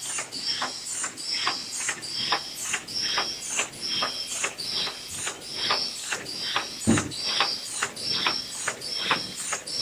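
JD-260 cellophane overwrapping machine running, its mechanism clicking and clacking in a steady rhythm of about two to three strokes a second. A single low thump about seven seconds in.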